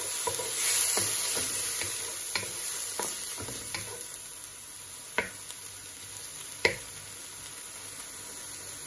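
Onions and tomato pulp sizzling in a hot non-stick wok while a wooden spatula stirs and mashes them, with scattered taps and scrapes of the spatula on the pan. The sizzle eases off after the first couple of seconds, and two sharper spatula knocks come about five and six and a half seconds in.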